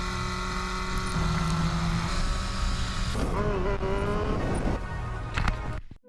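A motor vehicle engine running steadily, its tone shifting in pitch for a moment midway, then cutting off abruptly near the end.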